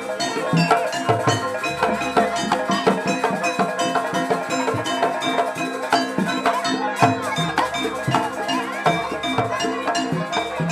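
Jaranan music from a gamelan-style percussion ensemble: quick, dense drumming with deep drum strokes and ringing bronze gongs and kettle-gongs.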